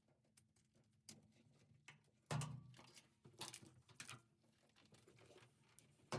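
Washer parts and tools being handled: scattered light clicks and rattles, with a sudden clunk about two seconds in that rings briefly, and another clunk right at the end.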